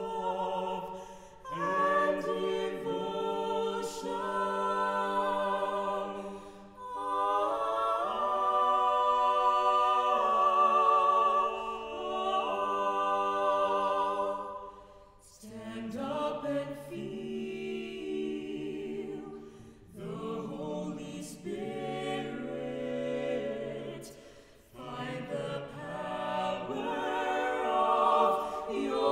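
Mixed chamber choir singing a cappella in held chords, phrase by phrase, with short breaks between phrases about halfway through and again near the end.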